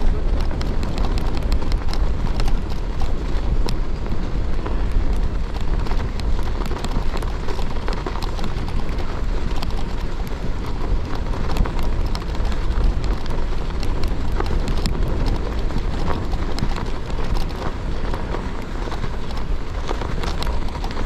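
Gravel bike tyres rolling over snowy, icy ground, a steady crunching dotted with many small clicks and crackles, over a low rumble of wind on the microphone.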